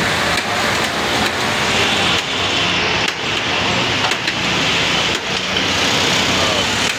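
A steady, loud roar of outdoor background noise, with a few light clicks.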